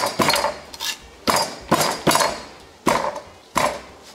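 Garlic cloves crushed under the flat of a chef's knife: the palm slaps the blade down onto a plastic cutting board in a series of sharp whacks, one or two a second, each with a brief metallic ring.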